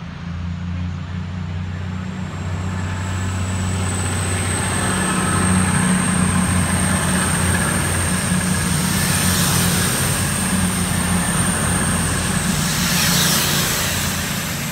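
Diesel passenger train passing close by: a steady engine drone and rushing wheel noise on the rails, with a thin high whine over it, growing louder a few seconds in and staying loud as the coaches and power car go by.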